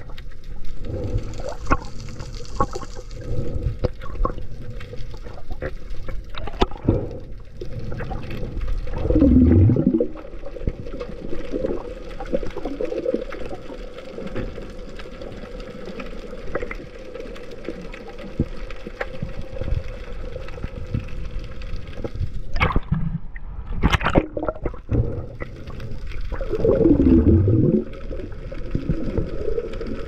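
Muffled underwater noise from a camera held underwater by a swimming spearfisher: a steady rush and gurgle of water with louder surges about nine seconds in and near the end. There are two brief sharp noises a little after twenty-two seconds.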